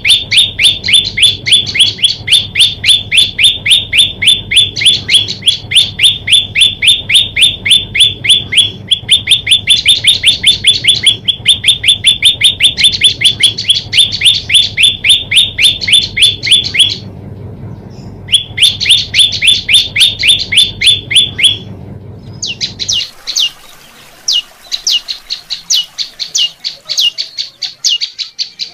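A prenjak lumut, a prinia, calls in a fast, rhythmic string of sharp chirps, about six a second, pausing briefly about two-thirds of the way in. Near the end the chirps turn sparser and higher.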